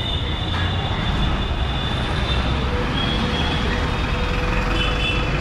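Busy city road traffic: the steady low rumble of a truck and cars running close by, with a thin high-pitched whine that comes and goes.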